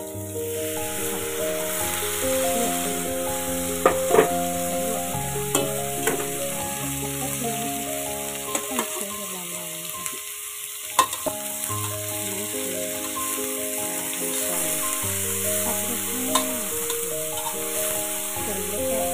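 Cauliflower and pork balls sizzling in a hot oiled wok as they are stir-fried, with a spatula now and then scraping and knocking sharply against the pan.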